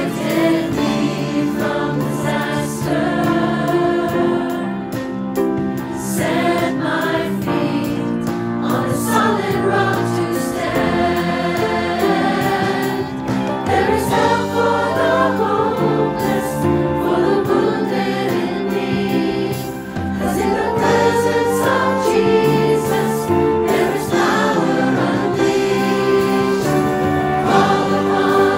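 Mixed choir of men and women singing a worship song in full voice, accompanied by a band with piano, drums, guitar and violin.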